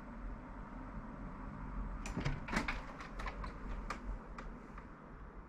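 A cluster of knocks and clicks starting about two seconds in and lasting a couple of seconds: a Siamese cat jumping up and landing on a plastic-topped printer on a wall shelf, its paws knocking and ticking on it.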